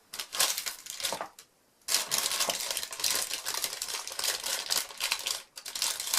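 Packaging crinkling and rustling with small clicks and taps as tools are handled and lifted out of a packed tool case. There is a short pause about a second and a half in, then the crinkling carries on steadily.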